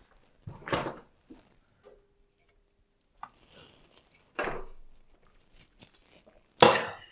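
A man drinking from a can of fizzy drink taken from the fridge: several short, breathy bursts with a few small clicks, the loudest burst near the end.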